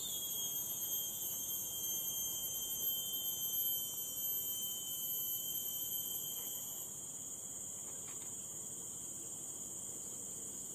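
Chorus of forest insects singing in steady, high-pitched tones at several pitches at once; the highest tone stops about seven seconds in.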